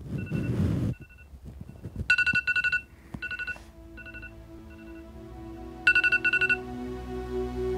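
Smartphone alarm ringing: groups of quick high beeps, repeated several times, with a short burst of rustling noise in the first second. Soft background music fades in underneath, and the alarm stops shortly before the end.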